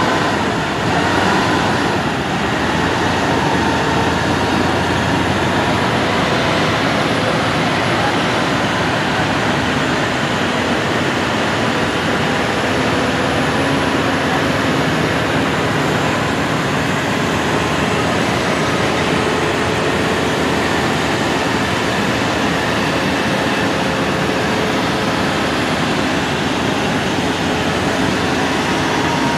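Heavy diesel trucks chained together in a towing convoy, their engines running under load with steady, loud engine and road noise that holds level throughout.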